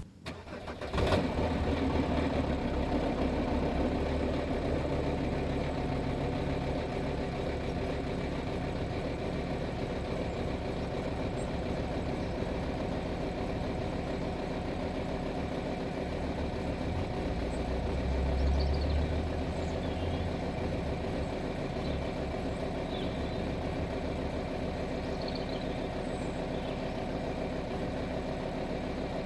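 Volkswagen Touareg 2.5 TDI five-cylinder diesel starting from cold about a second in, then idling steadily, with a brief swell in the low engine note around two-thirds of the way through. This is a cold start that the owner says runs rough and smoky until all five cylinders fire, a fault he suspects comes from worn glow plugs.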